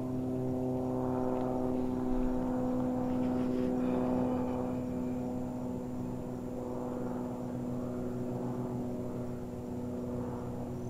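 Steady drone of a propeller engine at some distance, several pitches held evenly, swelling slightly a few seconds in and easing off again.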